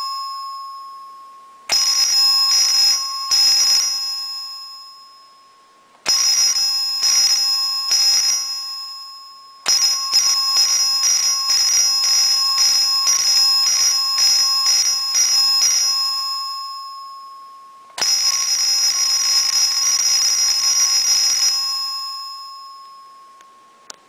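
Simplex 2902-9240 electric fire-alarm bell ringing in four bursts of rapid strokes, run as a vibrating bell. Each burst dies away in a long ring. The third burst lasts about six seconds.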